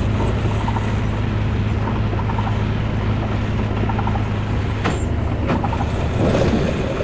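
Vehicle driving in heavy rain, heard from inside: a steady low engine drone under an even hiss of rain and tyre noise, with two short clicks about five seconds in.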